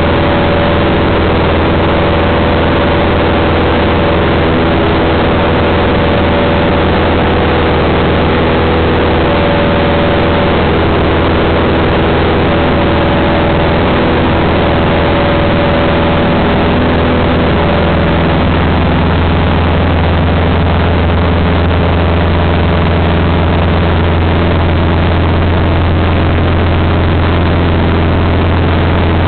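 Engine and propeller of a Cessna light aircraft in flight, a loud steady drone with a hiss of rushing air, heard from inside the cabin. The note of the drone shifts slightly partway through.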